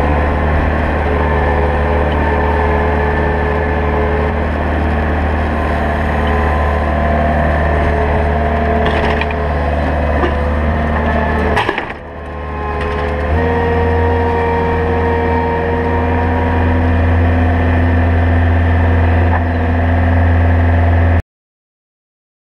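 Bobcat Toolcat 5600 utility machine's diesel engine running steadily with a deep hum while it works a grapple on a log. About twelve seconds in there is a sharp knock and a brief dip, after which the engine settles into a slightly higher, steadier note under load; the sound cuts off abruptly near the end.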